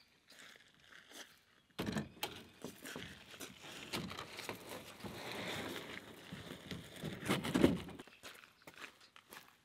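Light footsteps on gravel, then from about two seconds in a long rough scraping and rustling as a canoe is set down on the shore and slid into the water, loudest just before it stops about eight seconds in.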